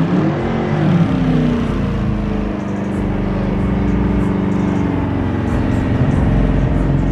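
Car engine held at high revs through a burnout, its pitch swinging up and down in the first couple of seconds and then holding steady, over the noise of the spinning tyres.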